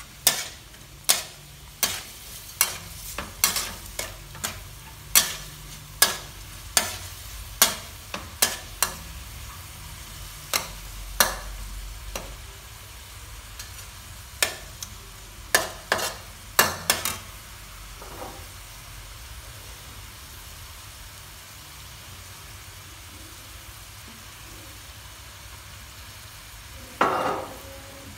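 A metal spatula scrapes and knocks against a metal wok in quick, irregular strokes as pork is stir-fried, over the steady sizzle of frying oil. The strokes stop for about ten seconds in the second half, leaving only the sizzle, and then one louder burst comes near the end.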